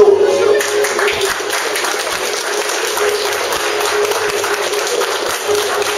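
Audience applauding, a dense patter of many hands clapping, with background music holding a steady note underneath.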